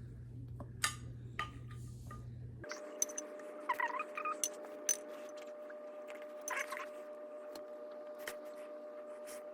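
Scattered light clinks and taps of kitchen dishes and utensils over a steady hum, with a couple of short high squeaks later on.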